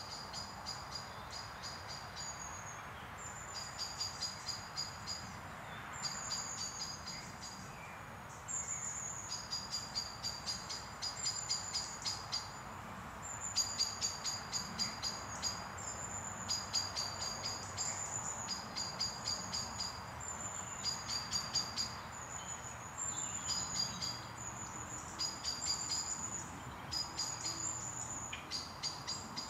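A small songbird repeating short, rapid, high-pitched trilled phrases, one after another with brief gaps, over a steady low rush of background noise.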